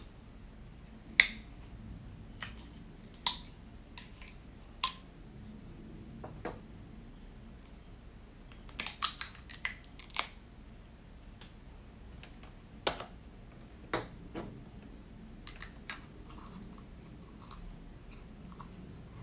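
Sharp plastic clicks and snaps of a honey squeeze bottle being handled as its cap is worked open, scattered through the stretch, with a quick flurry of crackling clicks about nine seconds in.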